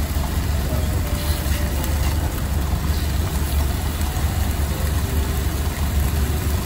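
Heavy truck's diesel engine idling with a steady low rumble, under the sizzle of pork and shiitake mushrooms frying in a pan.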